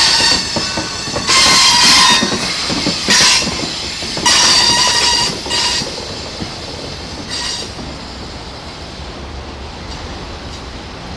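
Freight car wheels squealing in short, high-pitched bursts as the autorack cars round the tight curve of a wye, over the steady rumble of the rolling train. The squeals stop after about seven seconds, leaving a quieter rolling rumble.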